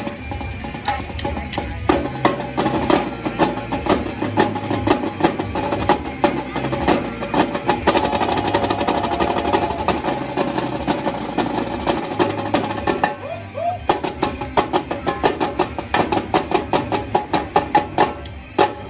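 Marching snare drums played by a drum line of four, quick stick strokes and rolls in a steady rhythm. The drumming breaks off briefly about two-thirds of the way through, comes back as evenly spaced accented beats, and stops sharply just before the end.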